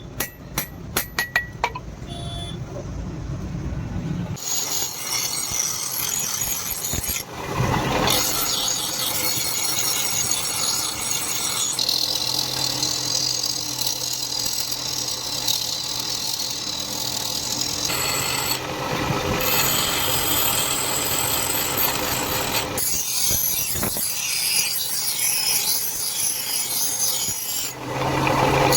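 Steel dagger blade being abraded on a motor-driven grinder: a continuous rasping noise over a steady motor hum, changing abruptly several times. A few sharp metallic clicks sound at the start.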